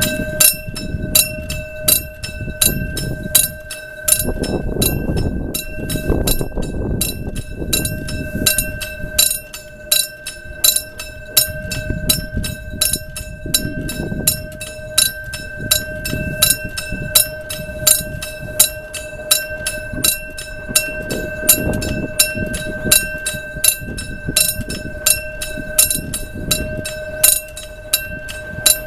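Level-crossing warning bell ringing steadily, about two strikes a second, each with a lingering ring, under a low rumble that swells and fades several times.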